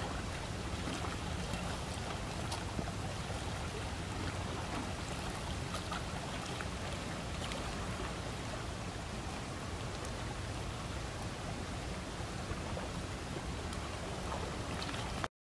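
Steady wash of small waves lapping on shoreline rocks, with wind rumbling on the microphone and a few faint ticks of water. It stops abruptly near the end.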